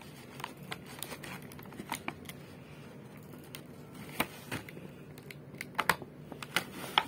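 Clear plastic blister packaging being handled and pressed, giving scattered clicks and crinkles, with the sharpest snaps in the last few seconds.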